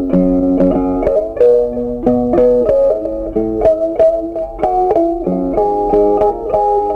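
Background music: a melody of plucked string notes, several new notes a second.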